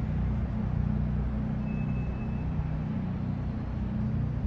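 Toyota Celsior V8 engines idling with a steady, even low hum.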